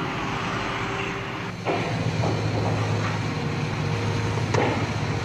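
Offshore drilling rig's deck machinery running: a steady low hum over a wash of noise. The hum grows louder about a second and a half in, and there is a single sharp knock near the end.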